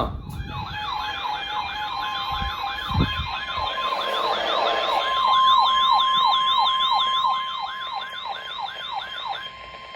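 Weather alert radio sounding its warbling siren alarm, about three sweeps a second, over the steady 1050 Hz NOAA Weather Radio warning tone that signals a warning, here a severe thunderstorm warning. The siren stops just before the end, and the steady tone holds on.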